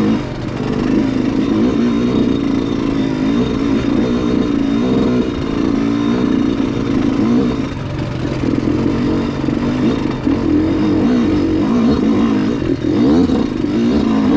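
ATV engine running on a trail ride, its pitch rising and falling with the throttle.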